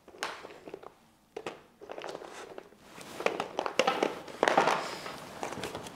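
Plastic bag of horse treats crinkling as it is tipped, with hard treats clattering and tapping into plastic tubs. The rustling and clatter get busier from about three seconds in.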